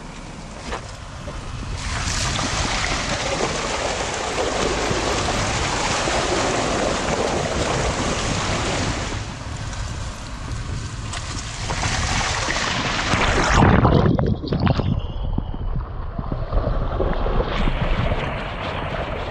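Dacia Duster 4x4 driving off-road: a steady rushing noise of tyres, wind and engine, with a heavier low rumble and thumps about fourteen seconds in, then the noise dies down and picks up again near the end.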